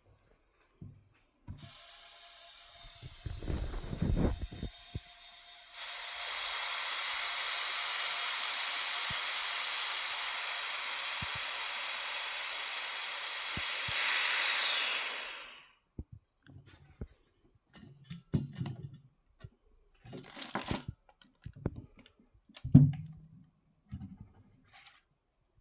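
Air hissing steadily through a vacuum chamber's valve for about ten seconds, swelling briefly just before it dies away. Scattered clicks and knocks of handling follow.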